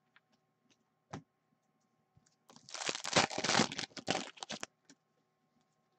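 Foil wrapper of a hockey card pack being torn open and crinkled in the hands: a short click about a second in, then about two seconds of dense crackling.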